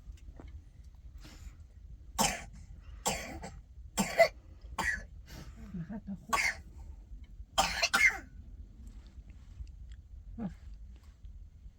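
A person coughing in a fit of about six harsh coughs spread over several seconds.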